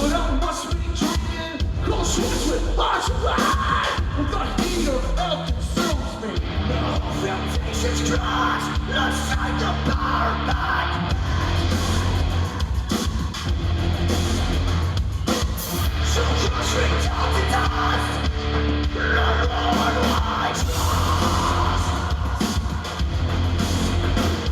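Heavy metal band playing live, with a hard-hit drum kit, distorted guitars, a bass line and sung vocals.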